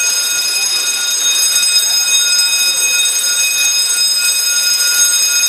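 Fire alarm sounder giving a continuous high-pitched tone, set off by the heat detector, which tripped at about 50 °C.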